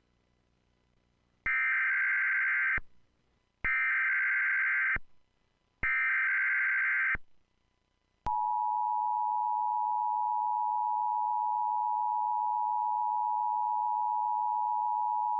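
Emergency Alert System tones announcing a tornado warning: three identical SAME header data bursts of about a second and a half each, a second apart, then about eight seconds in the steady two-tone attention signal starts and holds.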